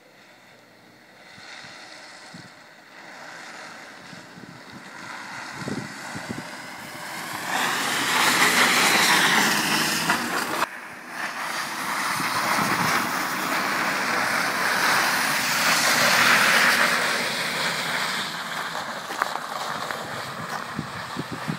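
Small hatchback car driving and sliding sideways on a snowy road, its engine revving under a hiss of tyres spinning through snow. The sound swells twice as the car passes close, about eight to ten seconds in and again around fifteen to seventeen seconds.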